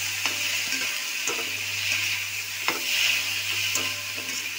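Soaked sago pearls with tomato frying in ghee in a pan, sizzling steadily as they are stirred, with about four knocks of the stirring utensil against the pan.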